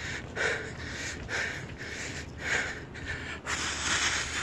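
A man breathing hard while jogging: breathy puffs about once a second, with a longer, louder exhale near the end.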